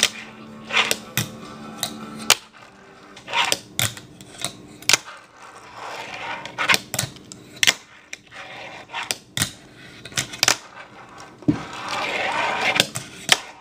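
Fingerboard on a wooden desktop: a string of sharp clicks as the little board's tail pops and lands on the wood, with its tiny wheels rolling across the desk in between.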